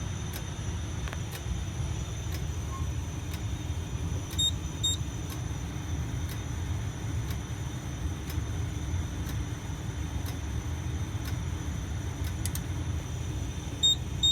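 Steady low hum, with two brief double clicks: one about four and a half seconds in and one near the end.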